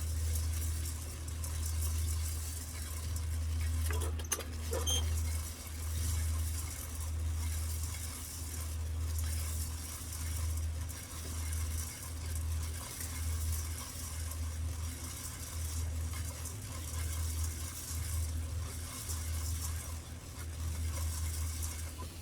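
Coffee beans roasting over a gas burner: a steady low burner rumble under the hiss and rattle of beans being stirred or turned, with a couple of sharp clicks about four seconds in.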